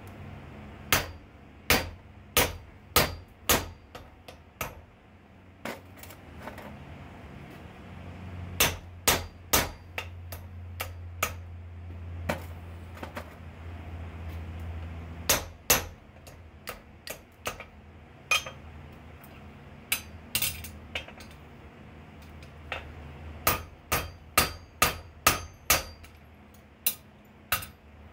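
Blacksmith's hammer striking hot steel on an anvil: bursts of sharp, ringing blows about half a second apart, with pauses between. Some blows drive a hand-held punch into the glowing bar.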